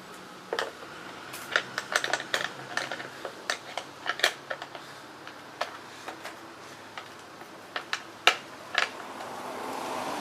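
Hand tools clicking and clinking irregularly against metal while fender fasteners are tightened on a motorcycle.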